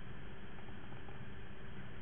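Steady room tone of the lecture recording: an even hiss with a faint low hum, unchanging throughout.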